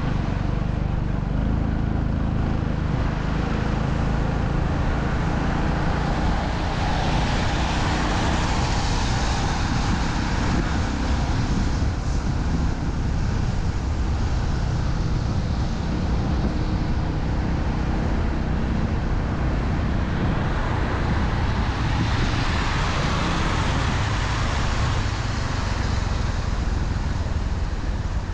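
Road traffic: a steady low rumble, with two vehicles passing about a quarter of the way in and again near the end, their tyre and engine noise swelling and fading.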